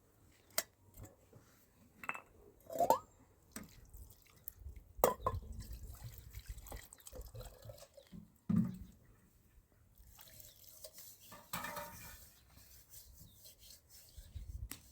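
Irregular water drips with scattered small clinks and knocks, a brief rising squeal about three seconds in and a short rush of noise just before twelve seconds.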